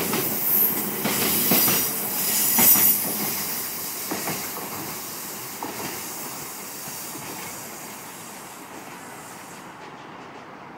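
Bogie coal hopper wagons of a freight train rolling past, their wheels clacking over rail joints with a high hiss and squeal for the first three seconds or so. The sound then fades steadily as the train draws away.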